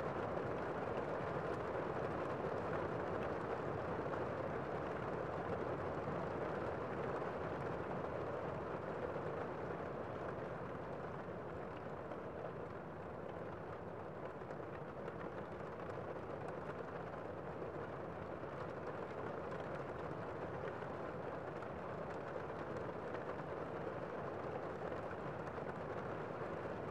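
Steady rain falling on a window, an even hiss without separate drops standing out, dipping slightly in level about halfway through.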